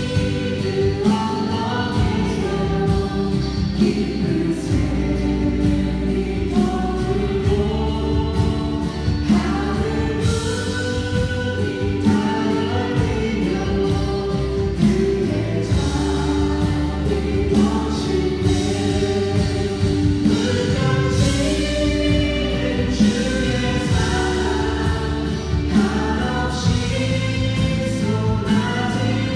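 Congregation singing a worship song with instrumental accompaniment, a steady beat under the voices.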